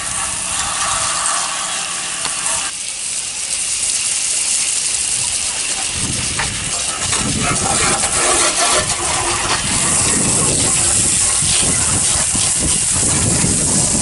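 A hose stream spraying water in a steady hiss onto the heat pump's metal louvred panels and then onto the outdoor coil fins. The sound shifts a few times as the stream moves.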